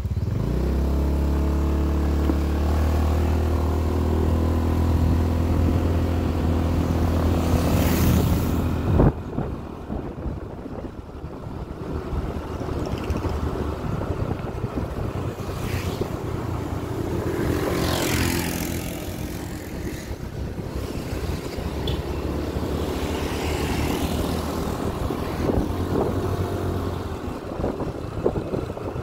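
Motorcycle engine running during a ride, holding a steady pitch for about the first nine seconds. A sharp click follows, and after it a rushing noise dominates with the engine underneath and a few brief swells.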